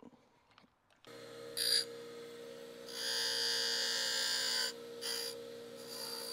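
A small electric power tool's motor starts about a second in and runs with a steady hum, overlaid by four bursts of harsh grinding noise, the longest about two seconds.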